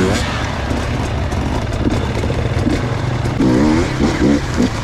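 Enduro dirt bike engines running with a steady low drone, the throttle blipped in several quick revs during the second half.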